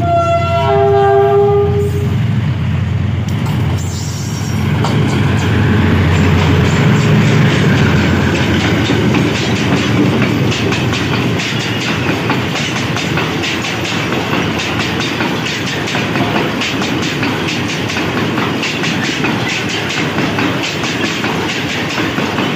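Diesel-electric locomotive sounding a short horn chord of several tones as it approaches, its engine running loud as it passes close by. Then a long train of heavily loaded flatcars rolls past, wheels clicking steadily over the rail joints.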